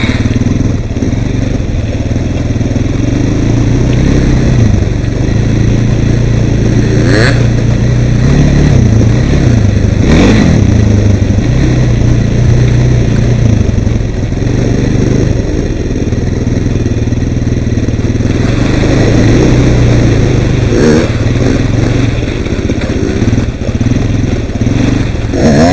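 Suzuki LT-Z400 QuadSport ATV engine running under way on a gravel trail, its revs rising and falling with the throttle, with revs climbing about ten seconds in, again a little past twenty, and near the end. A couple of sharp knocks come about seven and ten seconds in.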